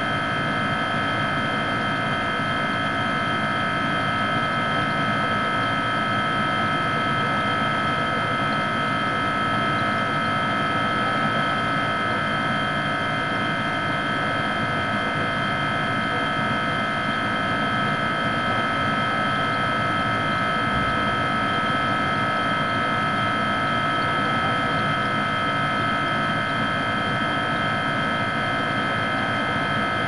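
Refrigerator running: a steady hum with a high-pitched whine over it, unchanging throughout.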